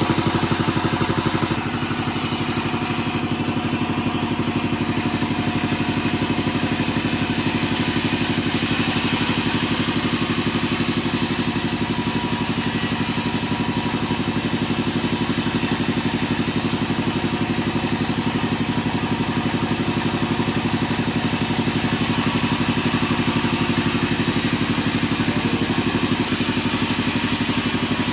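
Band-saw sawmill machinery running steadily, an engine-like drone with a fast, even pulse; it drops slightly in level about a second and a half in.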